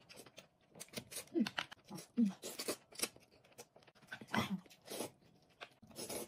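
A person eating noodles with chopsticks: short slurping and chewing sounds in quick succession.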